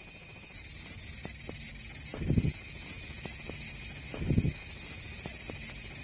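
Cicadas singing in a dense, high, steady buzzing chorus, with three low thuds about two seconds apart.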